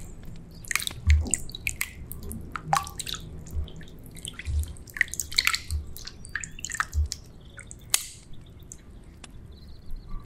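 A hand squeezing and kneading raw chicken breast in a glass bowl of salt-and-baking-soda brine: irregular small splashes, drips and squelches of water, with soft low thumps every second or so. The splashing thins out over the last couple of seconds.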